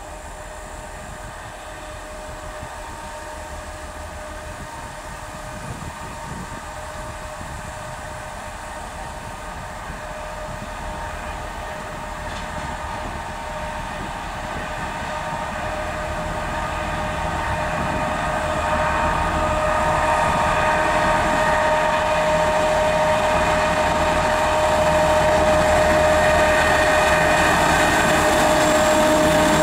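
Diesel locomotive approaching at the head of a freight train of hopper wagons, its engine running with a steady whine that grows steadily louder as it draws near.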